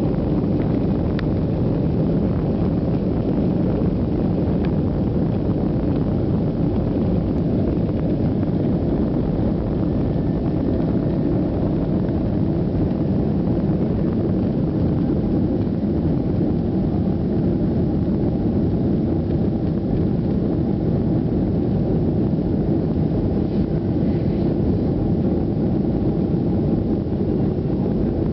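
Boeing 737 jet engines at high thrust heard from inside the passenger cabin during takeoff: a steady, low rumble that does not change in level.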